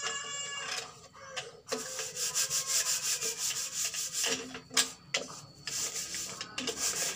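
Scratchy rubbing and scraping in quick, dense strokes, loudest in the middle of the stretch, with a short high wavering call in the first second.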